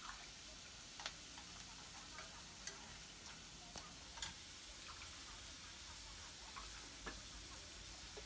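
Whole shrimp frying in a wok: a faint, steady sizzle broken by sharp ticks every second or so, the loudest about a second in and again about four seconds in.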